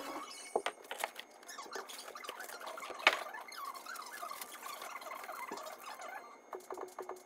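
Fast-forwarded sound of a bed frame being assembled: rustling, quick knocks and high chirpy squeaks, with the loudest knock about three seconds in.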